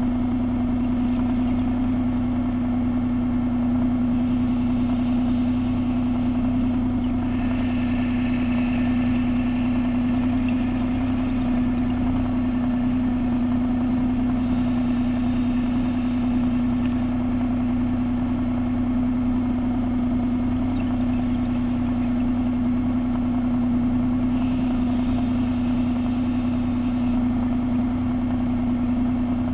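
Steady motor-like hum with a low rumble beneath, heard underwater. About every ten seconds, three times, comes a scuba diver's regulator breath: a high hiss of a couple of seconds, once followed by exhaled bubbles.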